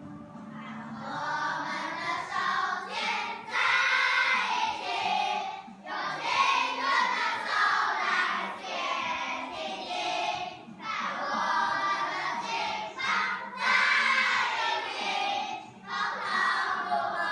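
A class of young children singing together as a group choir, in phrases with short breaks between them.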